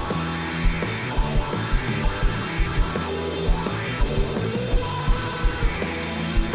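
Live blues-rock band playing an instrumental passage: electric guitar over bass and a steady kick drum beat.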